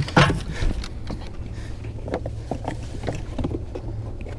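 Boat motor running with a steady low hum, with scattered light knocks and clatter from gear being moved around in the boat.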